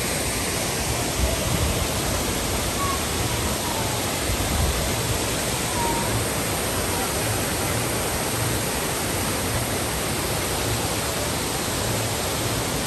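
Steady, loud rush of falling and churning water.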